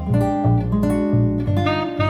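Acoustic guitar music with a plucked melody over a moving bass line, played through a JBL bookshelf loudspeaker and picked up by a microphone in the room.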